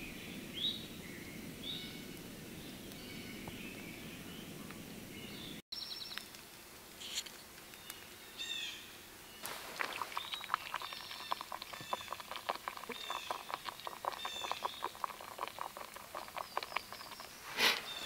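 A backpacking gas canister stove burning steadily under a metal mug, with birds chirping. After a cut, a rapid, dense crackling starts about nine seconds in and runs on as coffee goes into the hot water and foams, while the birds keep singing.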